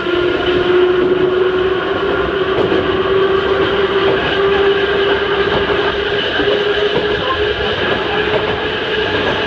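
Ohmi Railway Series 220 electric railcar's nose-suspended traction motors and gearing whining as it runs, the pitch rising slowly as the train gathers speed.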